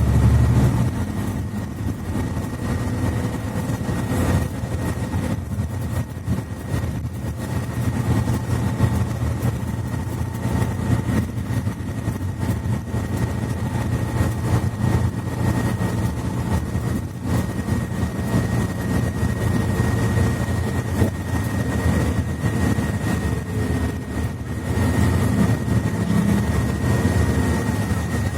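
Cabin noise of a Mercedes-Benz Citaro C2 articulated bus with a Voith automatic gearbox: the engine drone runs steadily with a thin high whine over it, quieter from about a second in and louder again near the end.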